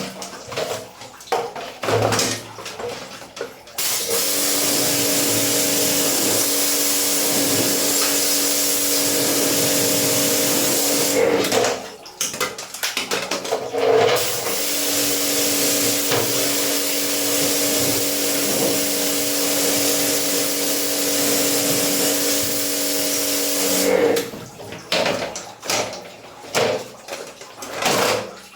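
Electric pressure washer spraying water, with a steady motor hum under the hiss of the spray, in two long runs of about seven and nine seconds, with splashing and dripping water before, between and after.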